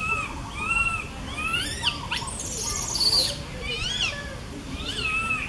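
Baby long-tailed macaque calling out to its mother with repeated high, arching coo calls, about one or two a second, some rising sharply in pitch. A brief high hiss sounds about halfway through.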